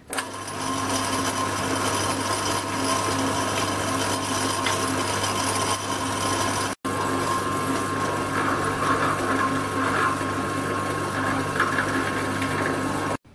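Pillar drill press running steadily with a constant motor hum while drilling holes in a metal workpiece held in its vise. The sound breaks off for an instant about halfway and stops abruptly near the end.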